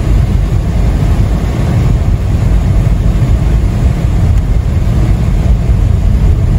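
Steady low rumble of a car driving on a snow-covered highway, heard inside the cabin: tyres on packed snow and the engine under way.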